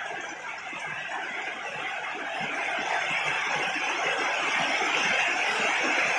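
Heavy rain falling steadily, a dense hiss of drops with many small patters, growing louder partway through.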